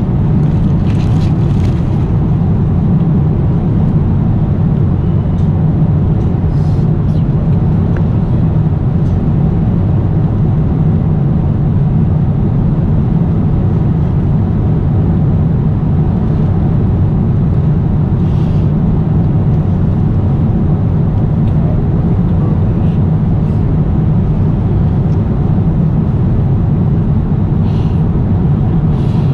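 Jet airliner cabin noise in flight: a loud, steady low drone of engines and rushing air. A few faint soft rustles are heard over it.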